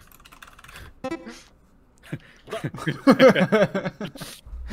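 A person's voice singing a short phrase, loudest from about two and a half to four seconds in.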